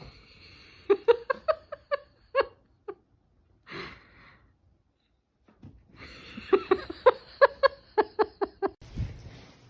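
A person laughing in two bursts of quick, high-pitched "ha" sounds, about four a second, with a pause between the bursts.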